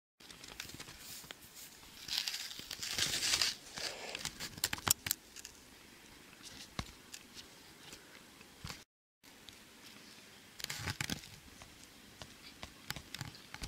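Rustling and scraping handling noise right at the camera microphone, in irregular bursts with sharp clicks, as a plastic ghost mask and hood brush against the camera. A brief dropout to silence about nine seconds in.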